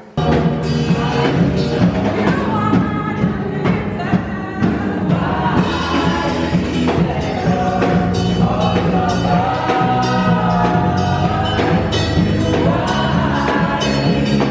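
Gospel music with voices singing over drums, cutting in abruptly at the start.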